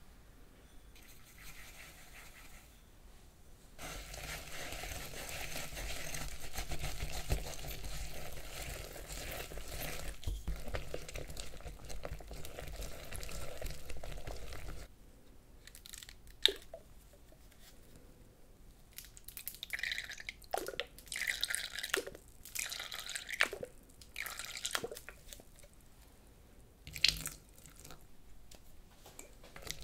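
Digestive biscuits being crushed for a cheesecake base: a long stretch of steady crunching, then a series of separate crunches and crackles.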